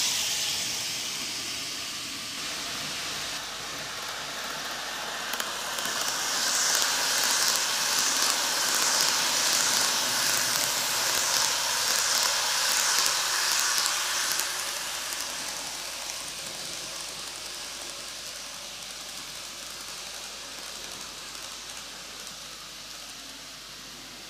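N-gauge model train running on TOMIX superelevated track, its wheels and motor making a steady hissing rattle. It swells as the train passes close about six seconds in and fades away after about fourteen seconds.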